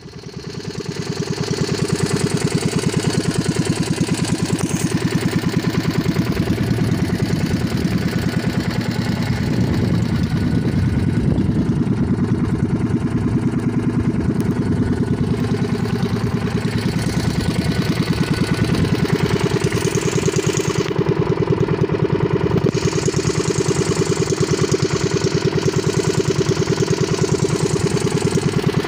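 Small outrigger fishing boat's engine running with a fast, steady beat. It comes up in level over the first couple of seconds and then runs evenly.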